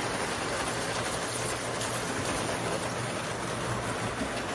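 Lionel toy steam train running on metal track: a steady rumbling rattle of the freight cars' wheels rolling past, with a low steady hum.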